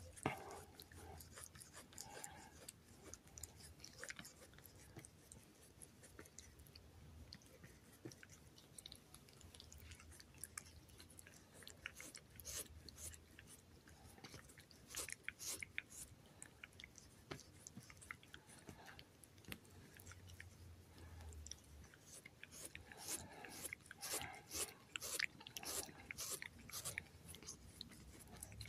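Domestic cat licking and nibbling bare skin up close: faint wet tongue licks and mouth clicks, coming in quick runs.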